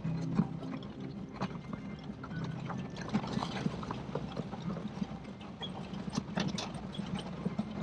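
A vehicle driving on a corrugated dirt road, heard from inside the cab: a steady low road drone with irregular rattles and knocks.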